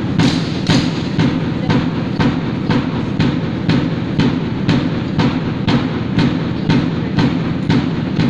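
A sharp, even beat about twice a second keeping marching time for a rifle drill squad, over a steady low rumble.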